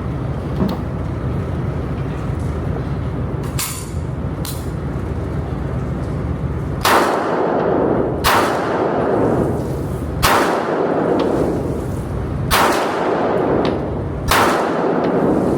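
A string of five gunshots from a firearm being fired at a target, about one every two seconds starting some seven seconds in, each with a short echoing tail. Two fainter sharp cracks come a few seconds earlier, and a steady low hum runs underneath.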